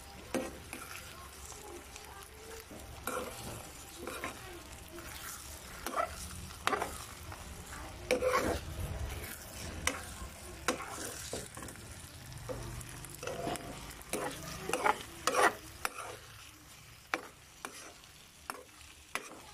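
Metal spoon stirring and scraping scrambled eggs and sliced hotdogs in a frying pan, with irregular scrapes and taps against the pan. The oil sizzles underneath as the eggs fry.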